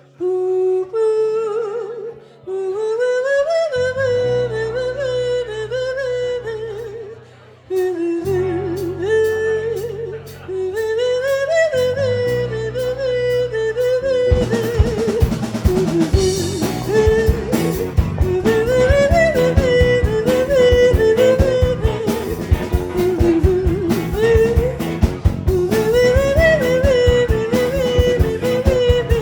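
Live blues band playing: a wavering lead melody over sustained bass and guitar notes that break off and restart, with the drum kit coming in about halfway through and the full band playing on.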